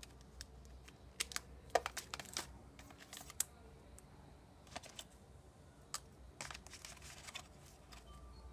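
Small sharp plastic clicks and taps from a clear plastic phone case and a hard plastic earphone case being handled, in irregular clusters, the busiest about one to two and a half seconds in and again around six to seven seconds.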